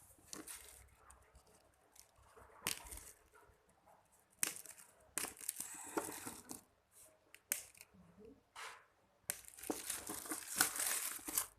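Packaging being handled and torn open: irregular crinkling, rustling and tearing, with a longer, busier stretch near the end.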